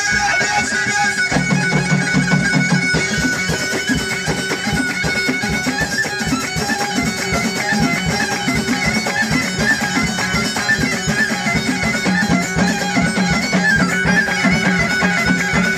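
Live Moroccan chaabi music in an instrumental passage: frame drums and a drum kit keep a fast, dense beat under a bowed violin and a reedy, droning lead melody.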